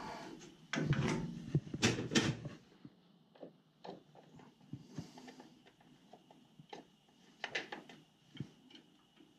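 Hands handling wires and fittings at a gas boiler's gas valve and control box. There is a stretch of rustling and knocks in the first couple of seconds, then scattered small clicks and taps over a faint steady high tone.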